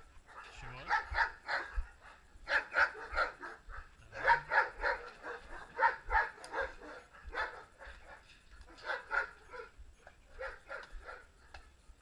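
Horse's hooves at a walk: steady clusters of three or four hoof strikes, a new cluster about every second and a half.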